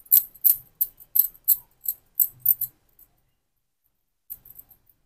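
Bangles on the wrists clinking in a quick, even run of light ticks, about three a second, as the hands roll a ball of rice-flour dough between the palms. The ticking stops about three seconds in, with a few fainter clicks near the end.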